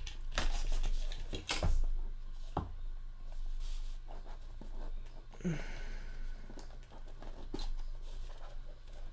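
Small cardboard trading-card box being handled and opened: a sleeve sliding off and the lid being worked apart, giving scattered taps, scrapes and rustles, with one short falling squeak a little past halfway.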